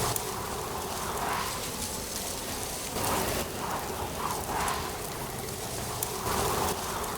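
Wind blowing through autumn leaves: a steady rustling hiss that swells in gusts every second or two.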